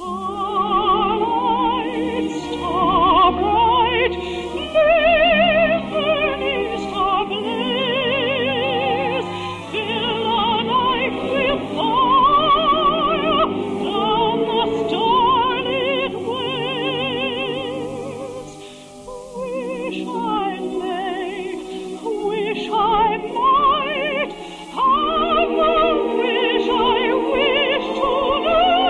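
Operatic singing with wide vibrato over orchestral accompaniment, pausing briefly about two-thirds of the way through. Old broadcast recording with the treble cut off, giving a thin, dull tone.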